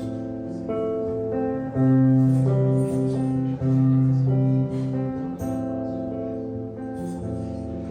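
Acoustic guitar strummed in the instrumental intro to a song, with the chords changing every second or so.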